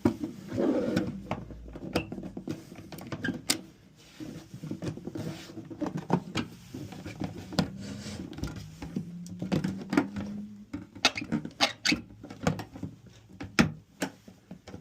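Typewriter carrying case being handled: an irregular run of knocks and clicks as the case lid is closed over the typewriter.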